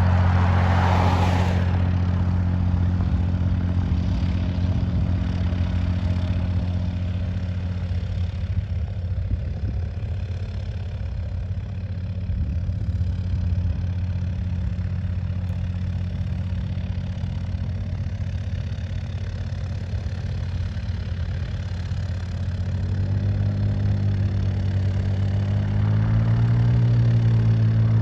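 An engine running at a steady idle with a low hum, a hiss fading away in the first two seconds, and its pitch rising in steps near the end.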